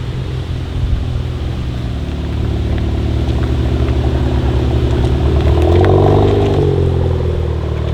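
Seat Leon Cupra ST 5F with a custom exhaust, its turbocharged four-cylinder running at low revs. The engine note grows louder over several seconds, is loudest about six seconds in, then drops in pitch and eases off.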